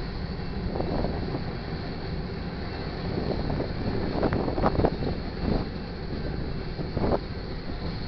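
Freight train cars rolling past: a steady rumble of steel wheels on rail, with a few louder clanks around the middle and one near the end.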